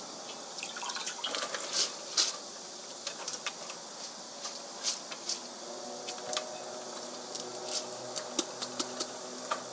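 Scattered light clicks and taps of kitchenware being handled, with a faint steady hum coming in about halfway through.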